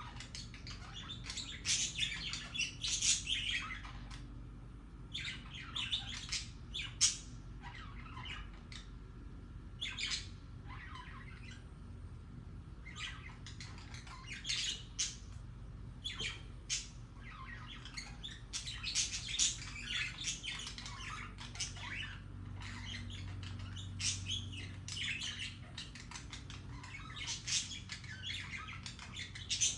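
Budgerigars chattering: short, irregular bursts of high chirps and squawks with brief pauses, the warbling chatter of contented budgies.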